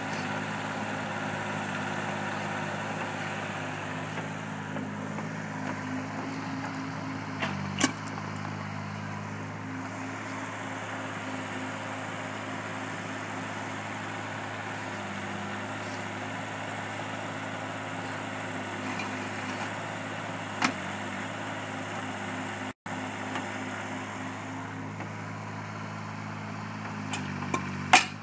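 Cat 301.8 mini excavator's diesel engine running steadily, its note shifting slightly with load, with a few sharp knocks: one about a third of the way in, one past the middle, and the loudest near the end.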